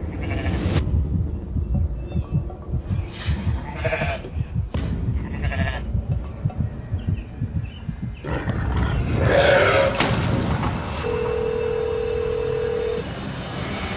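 Sheep bleating over a dark, pulsing music bed with sharp hits. A single steady tone holds for about two seconds near the end.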